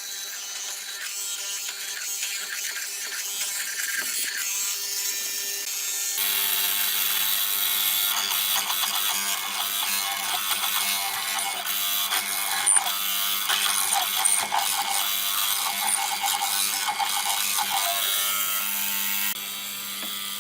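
Woodworking tool noise: rapid mechanical rattling and scraping that turns abruptly louder about six seconds in, joined by a steady hum.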